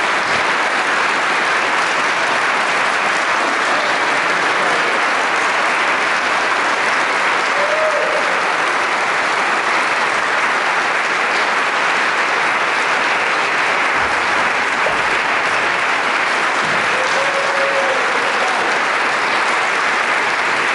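Audience applauding steadily, without a break.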